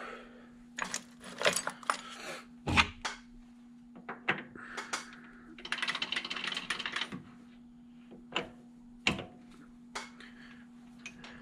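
Lathe tool holder being changed on a quick-change tool post: a series of sharp metal clicks and knocks, with a scraping slide of about a second around six seconds in as the holder goes onto the post. A steady low hum runs underneath.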